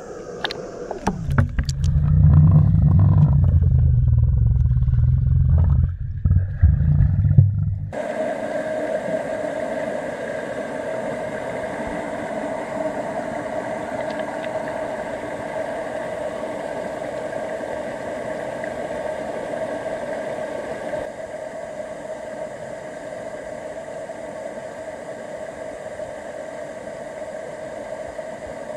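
Muffled underwater rumble from a camera submerged in a river for about the first eight seconds. It then cuts to the steady rushing of a shallow stream flowing over rocks, dropping slightly in level a little after twenty seconds.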